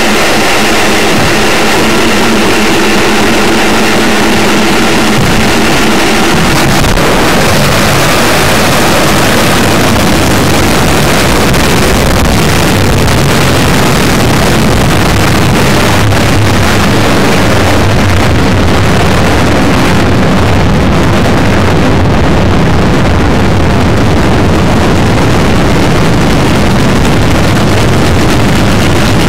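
Intercontinental ballistic missile launch: loud, continuous roar of the rocket motor. For the first six seconds or so several steady tones sound over it, then it becomes an even, deep rumbling noise.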